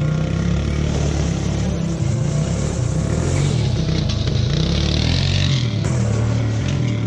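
Three-wheeler ATV engine running as the machine pulls away, its pitch rising and falling with the throttle. The sound changes abruptly about six seconds in.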